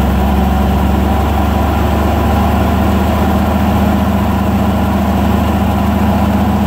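Cummins NHC250 inline-six diesel in an M939A1 military truck idling steadily, a deep even hum with no change in speed.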